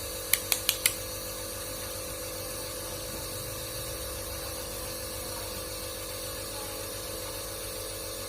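Small nebuliser compressor running with a steady, even hum while delivering an inhalation treatment. Four quick clicks come in the first second.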